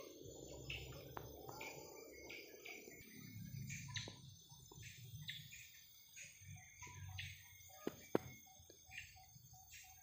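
Tropical forest ambience: short high chirps repeating irregularly about twice a second, over low rustling and handling as someone shifts position in the undergrowth. Two sharp snaps come about eight seconds in.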